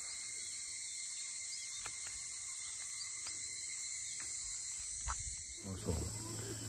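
Steady, high-pitched chorus of insects, with a few faint clicks. Near the end a low steady hum comes in.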